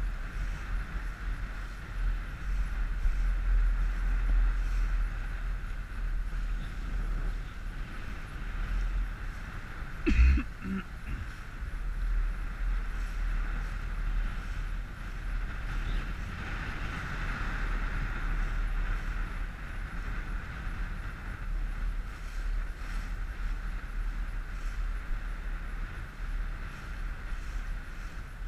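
Wind buffeting the microphone over the steady running of an inflatable coach boat's outboard motor, with one brief thump about ten seconds in.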